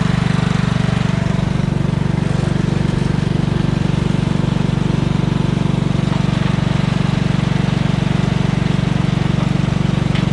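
Cub Cadet riding lawn tractor's engine running at a steady speed, heard up close with an even, regular pulse.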